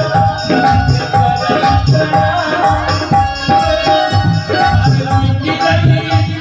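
Instrumental passage of a Bhojpuri folk song: hand drums keep a steady beat under a shaker rattle and a held melody line.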